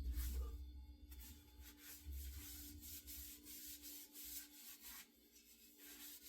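Sandpaper on a hand sanding plane rubbed back and forth along a wooden axe handle in a series of short strokes, with a low bump right at the start.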